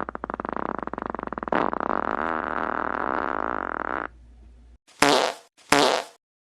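Fart sound effects: a long fart of rapid pops that run together into a buzz, then a second one with a wavering pitch, cutting off about four seconds in. Two short noisy bursts follow near the end.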